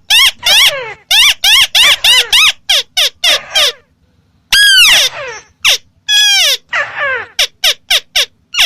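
White-browed crake calling: a fast series of loud, nasal notes, each rising then falling, about three a second. There is a short pause near the middle, then one longer note that sweeps downward, and the chattering series resumes.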